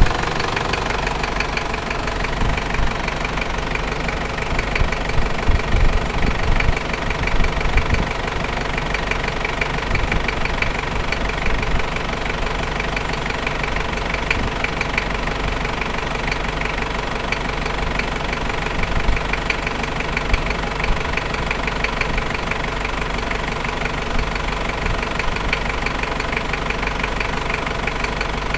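Toyota 1KZ-T four-cylinder turbodiesel engine idling steadily, with a fast even ticking and a few louder bumps about five to eight seconds in. The engine is new, and the owner reports an unwanted noise from it.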